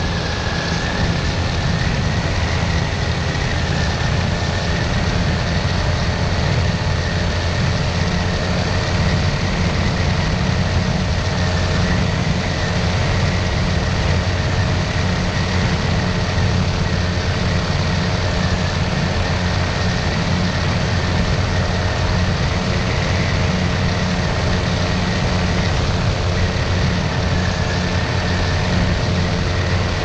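Flex-wing microlight trike in cruise: its pusher engine and propeller drone steadily at a constant pitch, with a rush of wind across the wing-mounted microphone.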